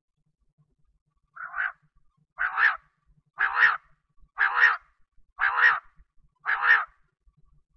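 Common quail (bater) calling: six short, repeated calls about a second apart, the first fainter than the rest.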